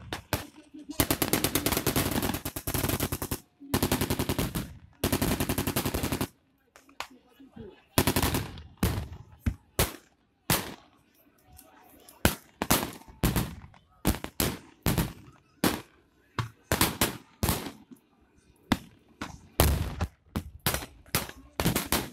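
Blank gunfire: two long bursts of machine-gun fire in the first few seconds, then a scatter of single rifle shots at uneven intervals.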